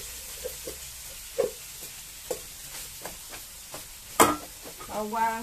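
Cooked rice sizzling in a hot wok over a gas flame, while a wooden spatula scrapes and taps rice out of an aluminium pot into the wok. The taps come irregularly, with one sharp knock about four seconds in.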